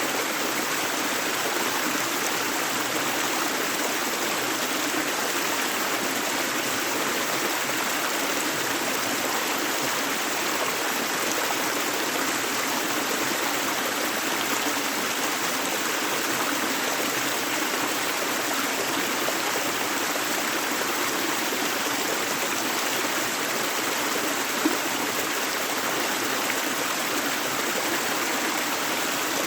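A river flowing steadily, a continuous even rush of running water with no pauses.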